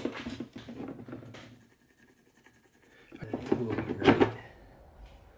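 Metal carbide runner being handled and laid against a plastic snowmobile ski. A sharp knock starts it, some scraping follows, and a second, louder burst of handling comes about three seconds in.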